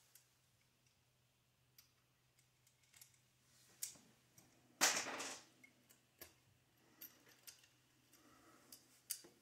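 Light scattered clicks and taps of small metal parts and tools being handled during assembly of an RC buggy chassis, with one louder clatter lasting about half a second about five seconds in.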